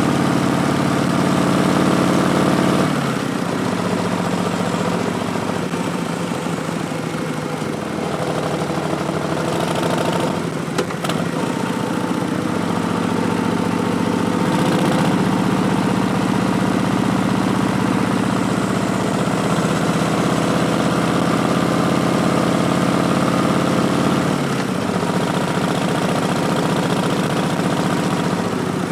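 2019 Harley-Davidson Street Bob's Milwaukee-Eight 107 V-twin running through Vance & Hines Twin Slash slip-on mufflers, a steady exhaust note. Its pitch drops about three seconds in, climbs again around halfway, and drops once more near the end, with a short click about eleven seconds in.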